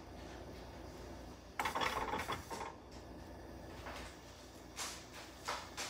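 A metal fork stirring in a nonstick saucepan, scraping and clinking against the pot in a short burst about a second and a half in, with a couple of light taps near the end.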